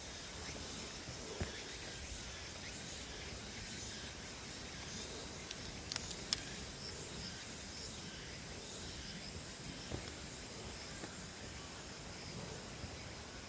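Outdoor ambience: a steady high-pitched hiss with faint chirring, with a couple of sharp clicks about six seconds in.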